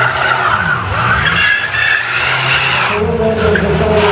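Rally car sliding around a tyre-stack turn, its tyres squealing under a hard-revving engine. About three seconds in, the engine note comes through more clearly as the car drives out of the turn toward the listener.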